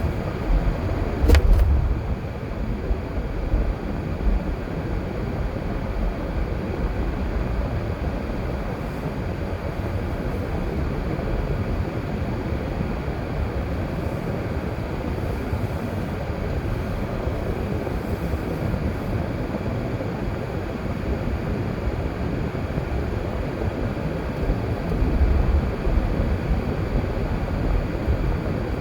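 A car driving along a road: steady engine and tyre rumble, with one sharp knock about a second and a half in.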